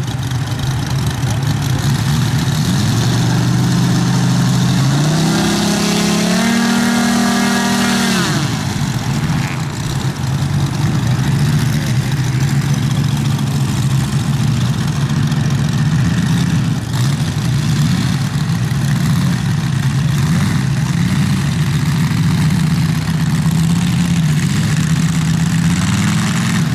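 Moki radial engines of giant-scale RC F4U Corsair models running at a steady idle. About four seconds in, one is run up, rising in pitch, held high for about two seconds, then dropped back to idle just after eight seconds.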